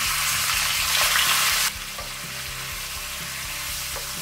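Raw mutton pieces sizzling in hot ghee in a stainless steel pan while being stirred with a wooden spoon. The sizzle is loud for the first second and a half, then drops suddenly to a quieter steady frying sizzle.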